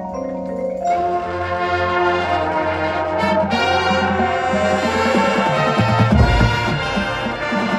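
Marching band playing: a held chord from the front ensemble's mallet percussion, then about a second in the full brass section comes in loud over a sustained low bass line, with heavy low hits around six seconds in.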